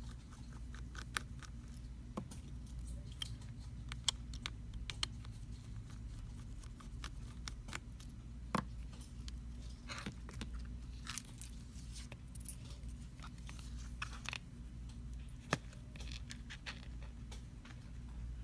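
Scattered light clicks and taps of a small screwdriver and tiny screws against a smartphone's frame during disassembly, over a steady low hum.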